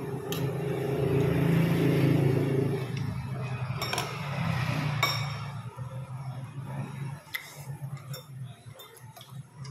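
A vehicle engine running steadily nearby, fading out about five seconds in, while metal forks and spoons clink against ceramic bowls several times.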